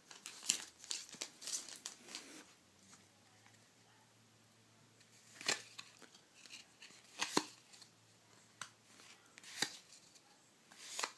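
Foil wrapper of a Yu-Gi-Oh! booster pack crinkling and tearing open for the first two seconds or so, then a few scattered sharp clicks as the cards inside are handled.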